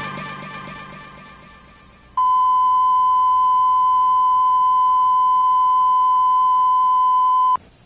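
Music fades out over the first two seconds. Then a steady electronic beep at a single pitch, like a test tone, sounds for about five seconds and cuts off abruptly.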